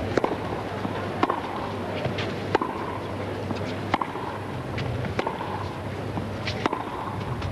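Tennis serve followed by a baseline rally: about six sharp racket-on-ball hits, roughly one every second and a quarter, over a low steady hum.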